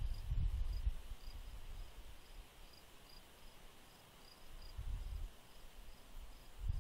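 Cricket chirping steadily outdoors, short high chirps about three a second, with a low, gusty rumble at the start and again near the end.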